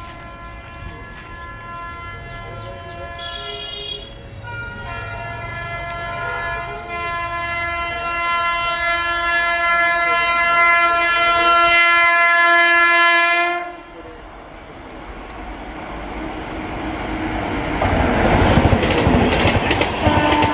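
Train horn blowing one long blast of about fourteen seconds: its chord changes about four seconds in, it grows louder, then it cuts off suddenly. A train then passes close, its running noise building to a loud wheel clatter near the end.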